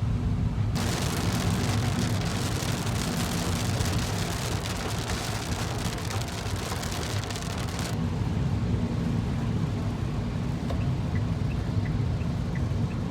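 Heavy rain hissing over a steady low rumble. The rain noise comes in suddenly about a second in and falls away after about eight seconds, leaving the rumble and a few faint light ticks.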